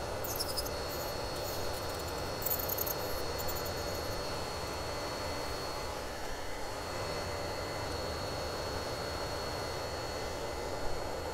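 Nail dust collector's fan running with a steady whoosh and a faint hum, which the user calls a bit loud. In the first few seconds an electric nail drill bit scrapes gel in short, scratchy patches, and there is a single click near the end.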